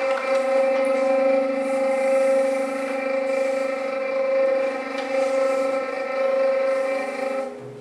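A single steady, siren-like tone with several overtones, held at one pitch for about seven and a half seconds with slight swells, then cut off near the end; part of the performance's experimental music.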